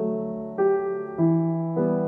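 Background music on piano: sustained chords struck one after another, a new chord about every half second, each fading before the next.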